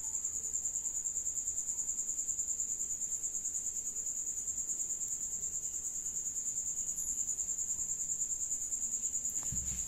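High-pitched insect trill, pulsing evenly about six times a second.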